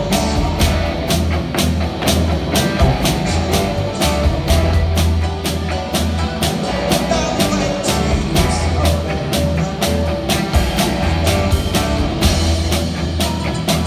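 Live rock band playing: electric guitar, bass guitar and keyboards over a steady driving beat with heavy bass, recorded on a mobile phone.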